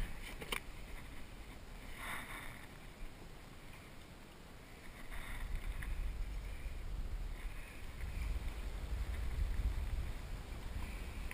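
Knocks and clatters in a plastic kayak's cockpit as a freshly landed Chinook salmon and the fishing gear are handled: a few sharp knocks at the start and another clatter about two seconds in. A low rumble sets in about five seconds in.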